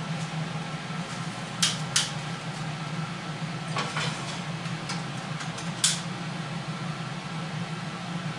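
A few sharp clinks of a metal pan against the stovetop, about two seconds in and again near six seconds, over a steady low hum.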